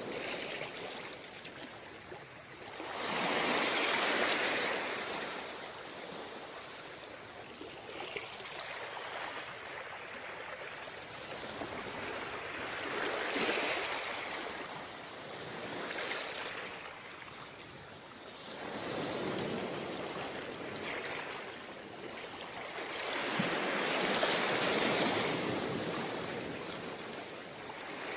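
Ocean surf breaking and washing up a beach, with the rush of water swelling and fading every few seconds. The loudest surges come about four seconds in and again near the end.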